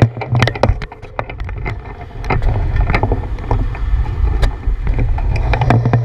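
Handlebar-mounted action camera riding on a bicycle: low wind noise on the microphone with many irregular clicks and knocks as the bike and camera mount jolt over the sidewalk.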